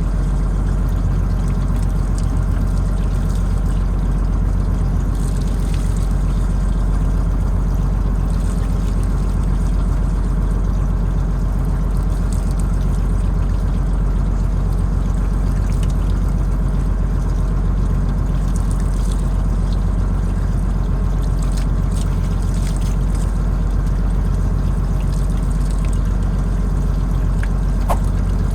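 Fishing boat's engine running steadily with a low, unchanging hum, with water pouring and splashing alongside.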